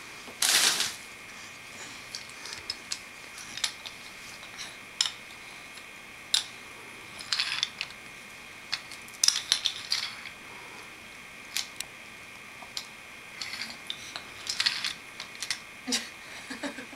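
Scattered small hard clicks and clacks of toy train engines being handled and moved on a wooden track, with a brief louder burst of noise about half a second in.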